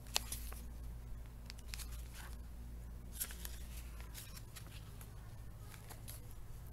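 Quiet background: a steady low hum with scattered faint clicks and rustles.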